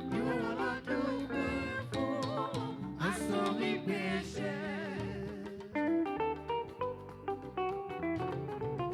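Band music: a voice sings with vibrato over the band, then an electric or acoustic guitar takes over with quick picked note runs from about halfway.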